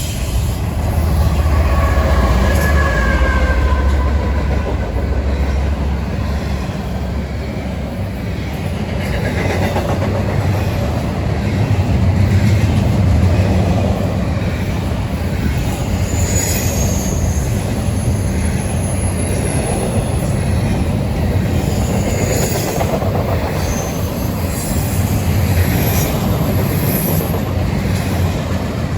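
CSX freight train rolling past, with a steady loud rumble of steel wheels on rail. Brief wheel squeals come about two seconds in and several more times in the second half.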